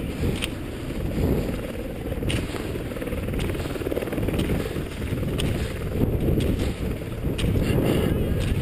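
Wind buffeting the microphone of a cross-country skier's body-worn camera, over the scrape of skis gliding on groomed snow. Sharp clicks every second or two from the ski poles being planted.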